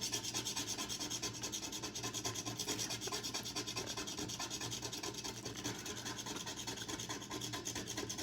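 A scratch-off lottery ticket being scratched: its silver coating scraped off in fast, even back-and-forth strokes, several a second, without a break.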